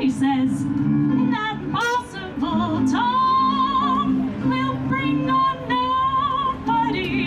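A woman singing a 1940s-style song with strong vibrato, holding long notes, over instrumental accompaniment on a stage sound system.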